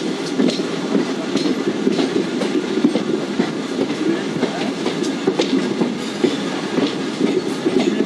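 Passenger train coaches running along the line, heard from the side of a moving coach: a steady rumble of wheels on rails, with frequent sharp clicks and clacks from the track.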